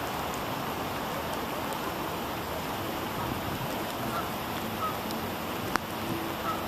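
Steady rain falling on a pond and the ground, an even hiss, with a single sharp click a little before the end.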